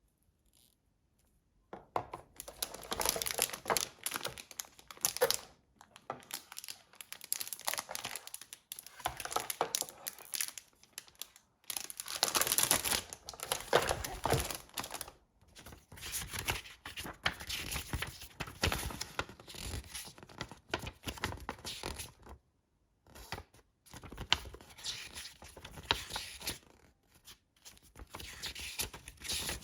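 Keyboard packaging being handled and opened: crinkling and tearing of wrapping in irregular bursts with short pauses, starting about two seconds in.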